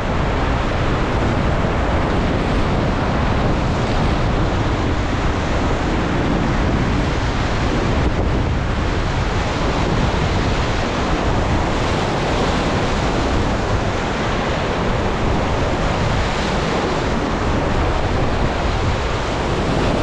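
Whitewater river rapids rushing around an inflatable raft: a steady, loud, unbroken wash of churning water.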